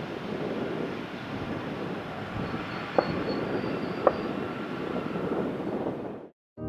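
Steady engine noise of a Boeing 777-300ER's GE90 turbofans as the airliner rolls out on the runway after touchdown, fading away near the end. Two short sharp clicks about a second apart in the middle.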